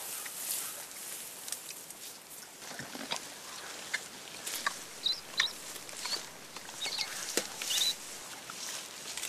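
Rustling of forest undergrowth with scattered light crackles and snaps as mountain gorillas move through it, and a few short high chirps in the second half.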